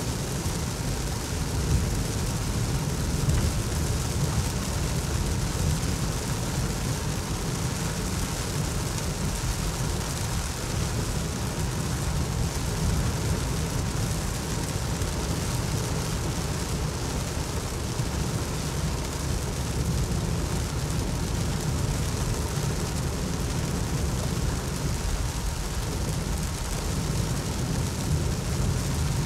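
Steady rumble of a car driving on a wet highway, heard from inside the cabin, with heavy rain hissing on the windscreen and roof.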